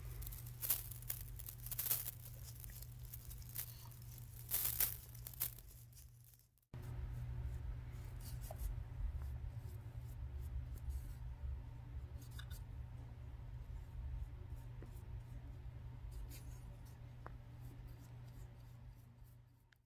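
Scratchy, rasping rustles and clicks of close hand work on an epoxy flake floor over a low steady hum. The sounds are loudest in the first few seconds; after an abrupt break about a third of the way in, only faint scattered clicks remain.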